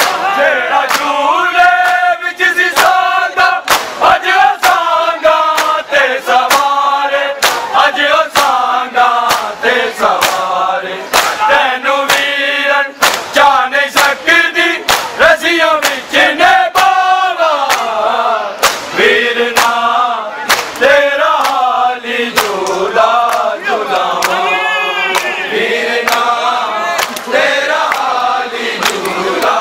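A crowd of men chanting a Muharram noha together over a steady rhythm of sharp hand-slaps on bare chests (matam).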